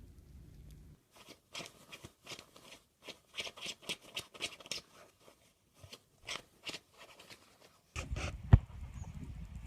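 A run of short, irregular crunching clicks, a couple a second, then a low rumble with a single sharp knock near the end.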